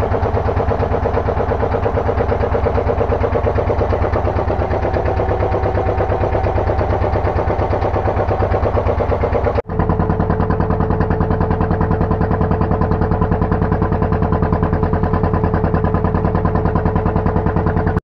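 Fishing boat's engine running steadily with an even, rapid pulse, heard loud from on board. It breaks off for an instant about ten seconds in and resumes with a slightly different tone.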